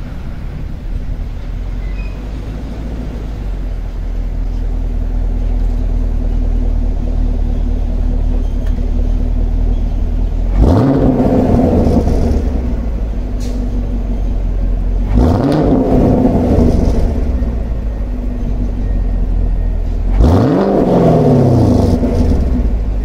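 2020 Camaro SS 6.2-litre LT1 V8 idling through its stock dual-mode exhaust set to Track mode, then revved three times, each rev rising in pitch and falling back to idle, the last one the longest.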